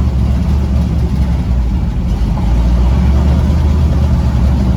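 Twin-turbo destroked 6-litre LS V8 in a pickup truck, running with a steady, deep, even exhaust note; the engine seems to be running well on fresh spark plugs and wires.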